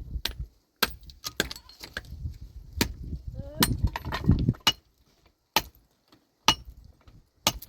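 A dozen or so sharp, irregular clicks and knocks, with a brief voice about halfway through.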